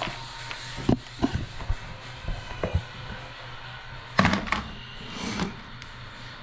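Short clicks and knocks of small plastic and metal parts being handled and pried while a motorcycle's handlebar turn signal switch housing is taken apart, with a louder clatter about four seconds in and a brief scrape after it.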